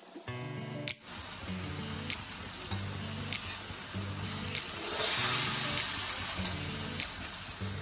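Whole chicken sizzling in turmeric sauce in a wok, the sizzle growing louder about five seconds in as the bird is turned with a metal slotted spatula and fork. Sharp clicks of the metal utensils scraping the wok come through the sizzle.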